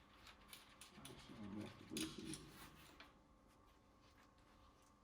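Near silence with a few faint clicks and taps, and a brief low murmur about a second and a half in.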